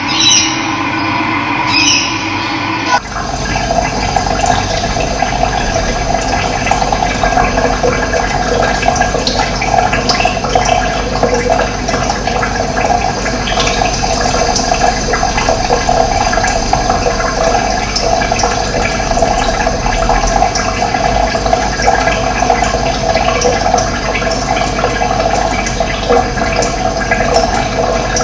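Steady rush of running water, which cuts in abruptly about three seconds in. Before it, a different recording carries a few short high chirps.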